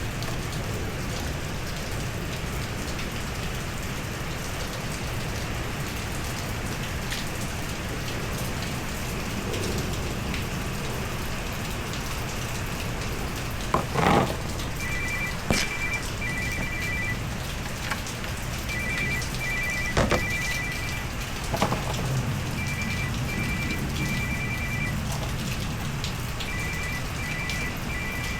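Antifreeze running out of the radiator drain plug into a catch pan, a steady splashing patter, with a couple of knocks near the middle. From about halfway in, a phone ringtone repeats its short two-tone beeps in groups, four times.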